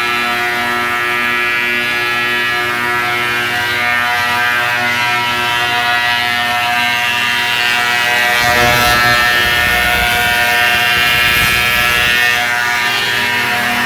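Wood-Mizer MP360 planer/moulder running with a steady whine while milling boards into tongue-and-groove. From about eight to twelve seconds in a rougher, slightly louder low rumble joins it as wood passes through the cutters.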